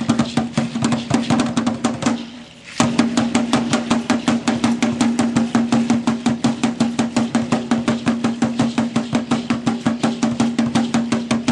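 Tall upright Aztec dance drum (huehuetl) beaten by hand in a fast, even rhythm, each stroke ringing with the same low tone. The beat stops for a moment about two seconds in, then picks up again and keeps going.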